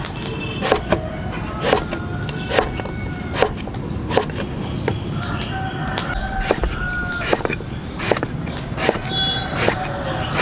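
A steady run of sharp knocks, a little more than one a second, with short high calls between them.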